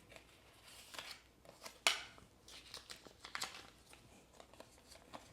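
Pokémon trading cards and their pack wrappers being handled: faint rustling and light clicks, with one sharper snap about two seconds in.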